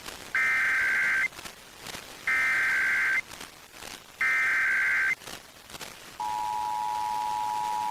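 Emergency Alert System SAME header data tones sent three times as identical bursts, each just under a second long and about two seconds apart, opening a required monthly test on FM radio. About six seconds in, the steady two-tone EAS attention signal begins.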